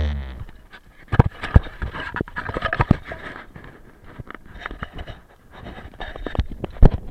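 A bike jolting and rattling over rough ground: irregular sharp knocks and clatters, the loudest about a second in and again near the end.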